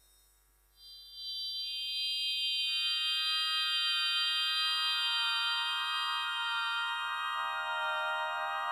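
Instrumental song intro on a keyboard with an organ-like sound: held notes come in about a second in, the highest first, and lower notes join one after another so the chord slowly fills out downward.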